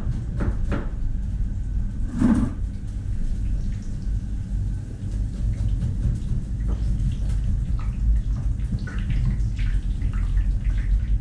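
Steady low rumble of a commercial kitchen's extractor hood and gas range running, with scattered knocks and clatter of knife and pans.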